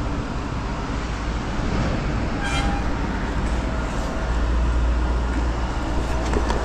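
Traffic on a wet road in rain: a steady low rumble with tyre and rain hiss, swelling about four to five seconds in as a vehicle goes by.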